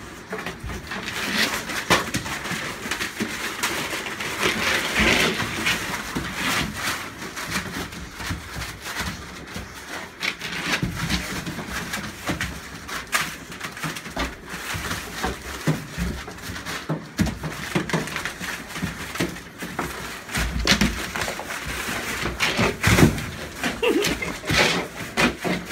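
Newspaper spread over a kennel floor crinkling and rustling as bulldogs scramble over it, with frequent close knocks and scuffs from the phone being handled among the dogs.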